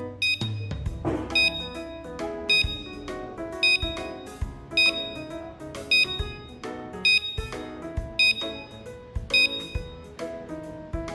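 Background music with a steady beat, a bright percussive hit about once a second over a melody.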